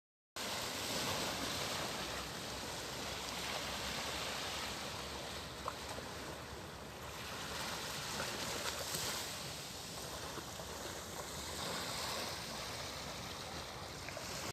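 Steady outdoor rushing noise, like moving water or wind, that swells and eases slowly, with a faint tick or two.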